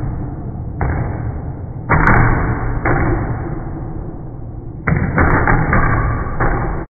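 Several claw hammers driving nails into a heavy wooden beam at once: a dense, muffled clatter of overlapping strikes that jumps louder about a second in, about two seconds in and again near five seconds.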